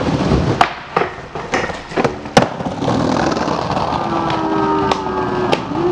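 Skateboard wheels rolling over tiled paving, with several sharp clacks of the board in the first half. Near the end a steady, pitched engine-like hum comes in and holds.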